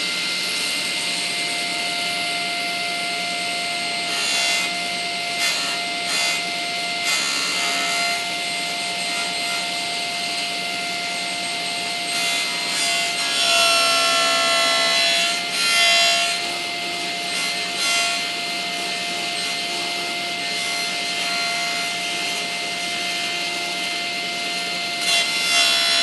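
Table saw running with a steady whine while an MDF disc is turned against the spinning blade on a circle-cutting jig, the blade shaving the faceted edge round. The cutting comes and goes in rasping stretches, the longest and loudest a little past the middle.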